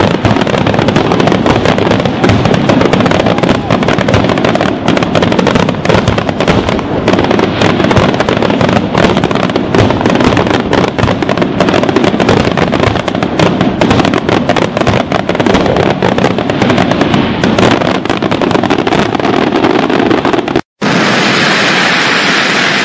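A dense, continuous barrage of fireworks: rapid overlapping bangs and crackling. Near the end it drops out for a split second, and a steadier hiss follows.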